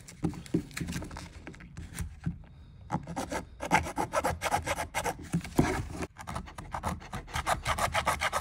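Hand-held hacksaw blade sawing through a motorcycle lower fairing's air-door duct: a few scattered strokes at first, then quick back-and-forth rasping strokes, about five or six a second, from about three seconds in.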